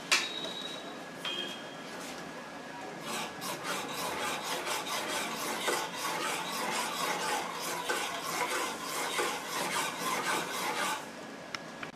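A spoon stirring sugar syrup in a metal pan, scraping the bottom in quick, even strokes for several seconds. It is preceded by a sharp metallic clink and a lighter clink about a second later.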